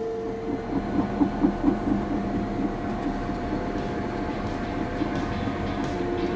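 CAT D6 bulldozer running, with a rapid clanking of its steel tracks, about four a second, for a couple of seconds as it moves off, then a steady drone.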